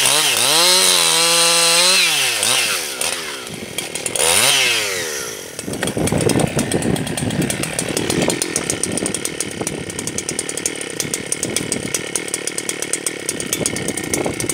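Husqvarna 272XP two-stroke chainsaw at full throttle ripping lengthwise along a log, then the throttle is released about two seconds in. After one brief rev around four seconds it settles to a steady idle.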